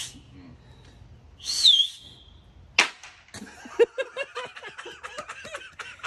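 A short hissing whistle, then about a second later one sharp wooden smack as two boards are slapped together to mimic a firework bang, followed by laughter.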